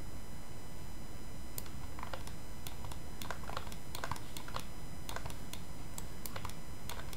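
Irregular clicking of computer keys, starting about two seconds in, over a steady background hiss.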